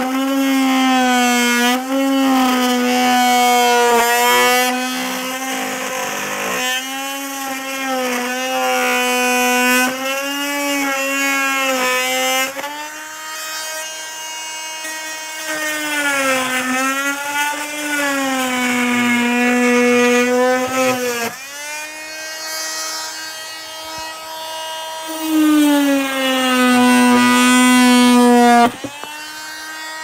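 Porter Cable PC250MT corded oscillating multi-tool running with a wood blade cutting mahogany. Its steady whine dips in pitch again and again as the blade bogs down under load, then recovers. Near the end the tool is switched off and winds down with a falling pitch.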